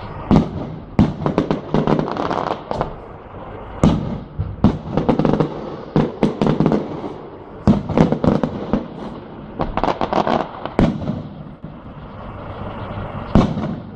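Fireworks display: shells bursting in quick clusters of sharp bangs and crackles, with short lulls between the volleys and one last loud bang near the end.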